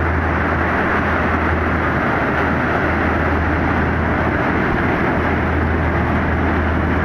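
Steady noise of heavy surf with wind rumbling on the microphone, unbroken and even in level.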